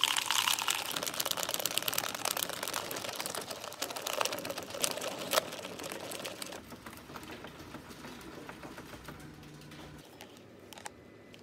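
Wire whisk beating egg whites by hand in a ceramic bowl: rapid clicking and scraping of the wires against the bowl, beating the whites into a foam. The clicking gets quieter after about six seconds.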